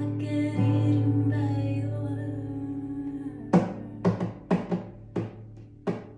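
Background music: sustained guitar and vocal tones, then a steady drum beat comes in about halfway through.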